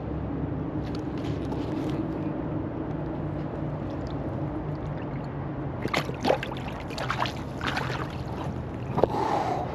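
A striped bass being released by hand at the side of a kayak: a run of short, sharp splashes in the water from about six seconds in, over a steady low background noise.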